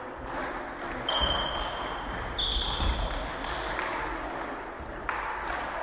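Celluloid-type table tennis ball clicking off bats and the table in a short rally: a few sharp pings in the first three seconds or so, then only low hall noise.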